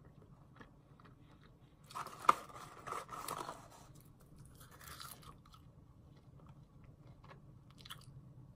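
Close-up chewing of McDonald's fries: a sharp crunchy bite about two seconds in, more crunching chews over the next second and again around five seconds, then quieter chewing.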